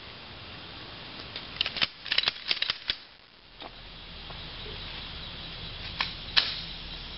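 A Glock 17 pistol firing 9mm rounds: a rapid string of about ten shots, then two more single shots a few seconds later.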